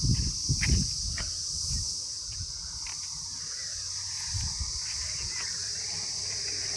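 Insects droning steadily at a high, even pitch in the fields, with a few low thuds in the first second.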